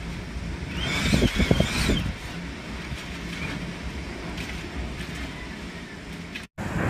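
Typhoon wind rumbling and buffeting against the microphone. It swells into a stronger gust with a high wavering whistle about a second in. The sound cuts out briefly near the end.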